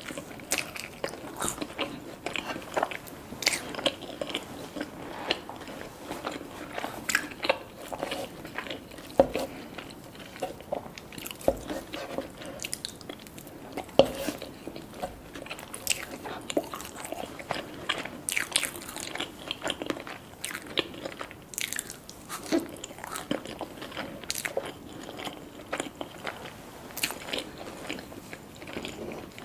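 A person eating: biting and chewing food, with many irregular sharp clicks and crackles spread throughout.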